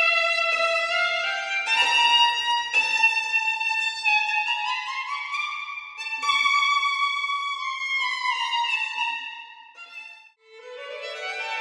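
Solo violin, unamplified, with the room's natural reverb, playing a melody of long held and sliding notes. About ten seconds in it fades to a brief pause, then comes back with a quick rising run.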